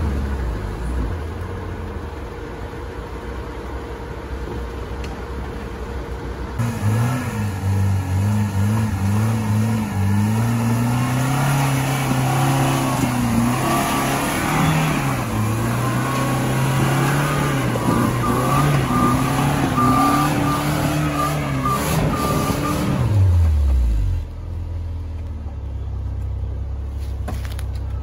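Lada Niva four-cylinder engine running low at first. About six seconds in it is revved hard and held high, its pitch rising and falling. About 23 seconds in the revs drop away quickly and it settles back to a low rumble.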